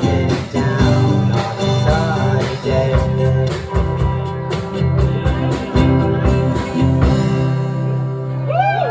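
Live rock band with drums, guitar and bass playing the closing bars of a song. The drum hits stop about seven seconds in and the last chord rings on.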